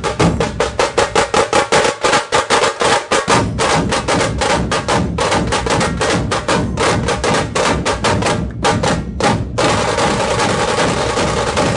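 Dhol-tasha ensemble drumming: many large two-headed dhol drums and tasha played together in fast, dense strokes. About eight and a half seconds in the strokes break off twice briefly, then the ensemble goes into a continuous roll.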